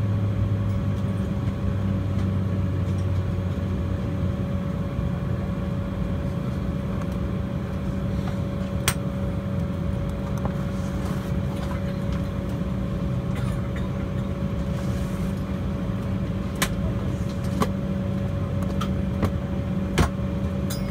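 Steady cabin hum inside an Embraer 190 airliner, with a low drone that fades a few seconds in. A few sharp clicks and knocks come in the second half.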